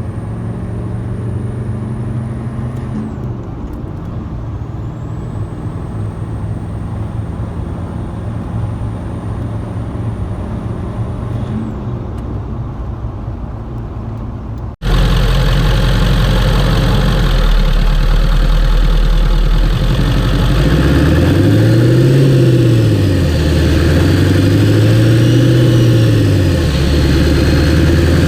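7.3 PowerStroke turbo diesel V8 running, with a high turbo whistle that rises and holds, drops off about three seconds in, then rises again and cuts off about twelve seconds in. About halfway through, the sound cuts abruptly to a louder take of the same engine, revved twice, its pitch rising and falling each time.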